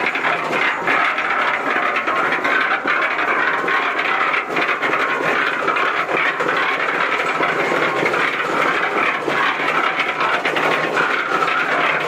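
Concrete mixer running steadily, its drum turning and churning water and detergent inside, with a light rattle from the machine.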